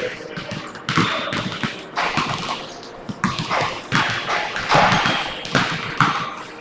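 Several basketballs being dribbled and bounced at once on a hardwood gym floor, an irregular, overlapping patter of thuds.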